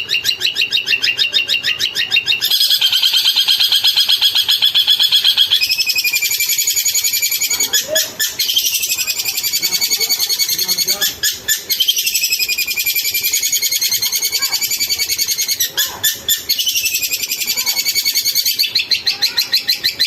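Long-tailed shrike (cendet) song: a loud, continuous run of fast, rapidly repeated high chattering notes, the pattern shifting about two and a half and again about six seconds in, with a few brief breaks.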